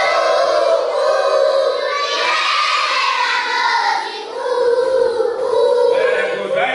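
A group of children singing together in chorus, with long held notes and a brief dip about four seconds in.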